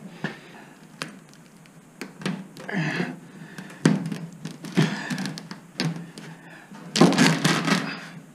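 Sheet-metal fender being worked loose from an antique car's body, giving scattered knocks, taps and thunks of loose metal. A longer, louder burst of rattling knocks comes near the end.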